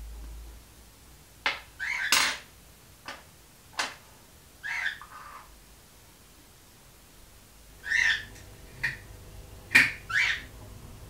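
A small bird chirping in short calls several times, with a few sharp clicks in between.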